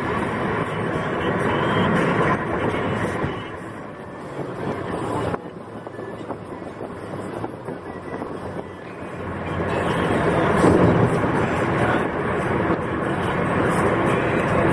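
Steady road and tyre noise with engine rumble, heard from inside a car cruising on a highway. It turns quieter for a few seconds after an abrupt change about five seconds in, then builds back up.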